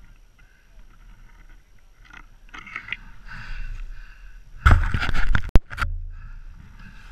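Polaris Pro RMK Assault snowmobile's two-stroke engine running low, with a loud rough burst for about a second two-thirds of the way in, ending in a sharp click, before it settles back to a steady low hum.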